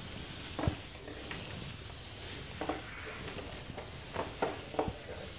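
A whiteboard duster wiping the board in a handful of short, irregular rubbing strokes, over a cricket's steady high trill.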